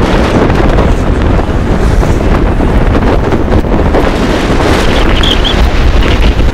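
Force 6 wind buffeting the microphone aboard a sailboat, loud and steady, over the sound of choppy sea.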